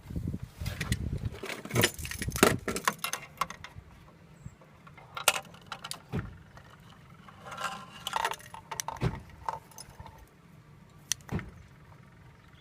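Irregular metallic jangling, clinks and sharp clicks from small metal objects being handled, busiest in the first few seconds, then a few single knocks. No siren wail sounds.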